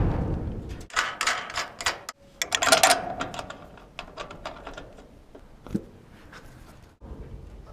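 Handling knocks and metallic clinks from steel fittings on a steel deck. A heavy thump comes at the start, then a quick clatter of clicks and knocks about one to three seconds in, ending in a brief ringing clink. A single knock follows near six seconds in.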